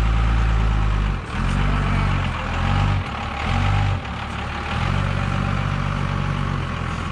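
Dodge Ram 2500 pickup's engine running while the truck is maneuvered, rising in three short surges of under a second each over the first four seconds, then settling into a steadier, slightly quieter run.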